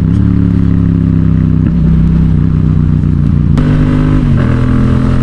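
Yamaha XSR700's parallel-twin engine with a Yoshimura exhaust, heard while riding: a steady engine note that changes pitch in sudden steps twice, with a brief click at the second step.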